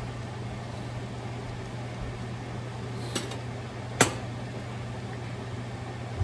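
A metal spoon clinks against a stainless steel pan twice, faintly about three seconds in and sharply about four seconds in, as it is set down across the rim. A steady low hum runs underneath.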